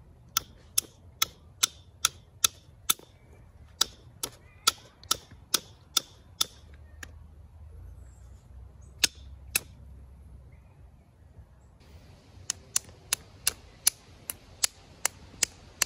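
Antler billet tapping the edge of a chert flake: sharp stone-on-antler clicks at about two to three a second, in two runs with a short pause and two single taps between them. It is percussion flaking to knock the corners off the flake while shaping an end scraper.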